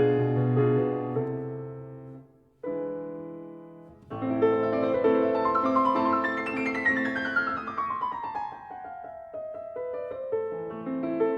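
Piano music in held chords. It fades almost to nothing about two and a half seconds in before a new chord enters, and in the second half a run of notes falls from high to low.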